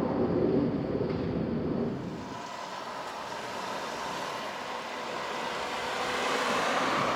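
Train passing at a railroad crossing. The rumble of wheels on rail drops away about two seconds in, and a rushing noise builds again toward the end.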